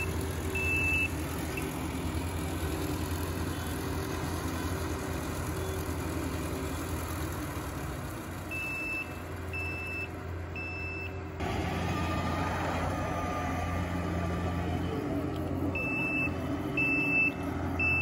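Rice combine harvester's diesel engine running steadily. Its warning beeper sounds short, evenly spaced beeps about once a second, three of them past the middle and again near the end, the pattern of a reversing alarm.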